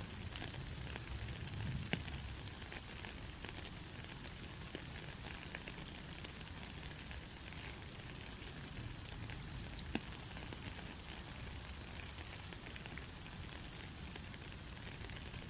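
Steady white-noise hiss, sprinkled with faint crackles and a few sharper clicks.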